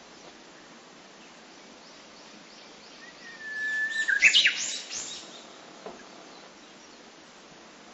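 Japanese bush warbler (uguisu) singing one "hoo-hokekyo" phrase: a long held whistle, then a quick rising flourish of notes, over a steady outdoor hiss.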